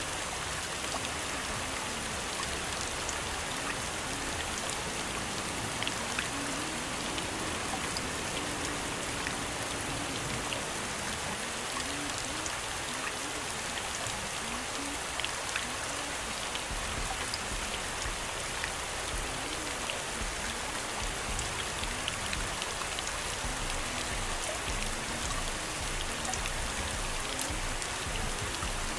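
Steady rain sound, an even hiss dotted with scattered sharp drop ticks, with faint low wavering tones underneath.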